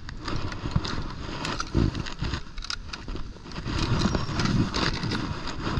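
Irregular clicks, knocks and low thuds from handling a hand-held digital fishing scale and a small bass over a boat deck, over a steady rushing noise.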